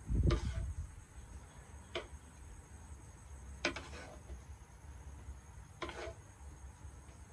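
Wooden paddle knocking and scraping against a wooden tray while turning and spreading steamed sticky rice: a few short knocks spaced a second or two apart, the first and loudest with a dull thump.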